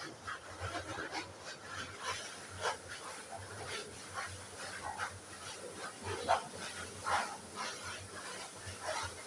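Rapid, irregular animal calls: short chirps and yelps, several sliding down in pitch, following one another without a steady rhythm.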